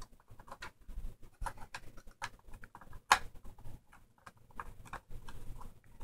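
Irregular small clicks and taps of fingers pushing a laptop memory module into its slot in the open memory compartment, with one sharper click about three seconds in, over a low handling rumble.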